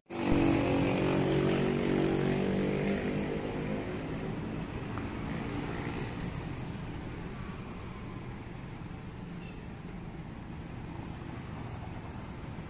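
Road traffic crossing an open railway level crossing: motorcycle engines passing close by. One engine drone is loudest at the start and fades away over the first few seconds, leaving a steady low traffic rumble.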